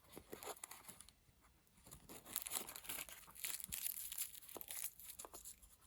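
Faint crinkling and rustling of a small packet of watch parts being handled, with scattered light clicks and a short lull about a second in.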